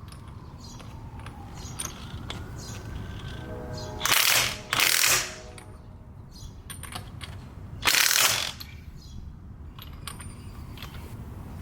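Wheel lug nuts being tightened with hand tools: scattered ratchet-like clicking, broken by three loud half-second bursts, two about four seconds in and one about eight seconds in.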